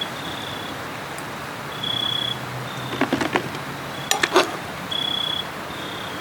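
An insect calling: short, steady high-pitched buzzing pulses repeating every second or so over a steady background hiss, with a few sharp clicks about three and four seconds in.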